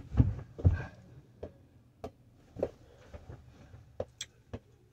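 A small bouncy ball tapping into a hand as it is tossed up and caught, a short tap about every half second to second. Two heavier thumps come in the first second.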